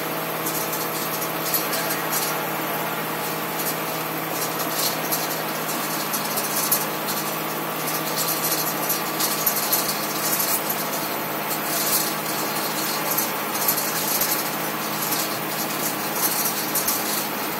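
Pickup truck engine running steadily while driving over a rough dirt road, heard from inside the cab, with irregular rattles and knocks from the cab as it bumps along.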